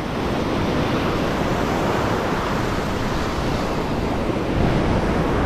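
Ocean surf breaking and washing through the shallows in a steady wash of noise, swelling a little about four and a half seconds in.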